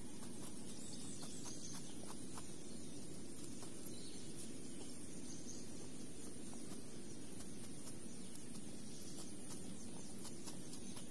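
Steady outdoor rural ambience: an even low background noise with faint scattered light ticks and insects chirring high up.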